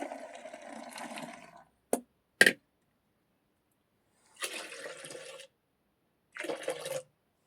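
Liquid poured and splashed into a vessel in short spells, foley for milk. Two sharp knocks come about two seconds in, the second of them the loudest sound.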